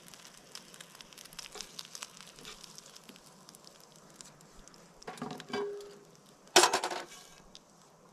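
Fat crackling and spitting faintly in a cast iron frying pan over a wood stove. Near the end the pan is moved off the stove with a scrape and then a loud metal clatter.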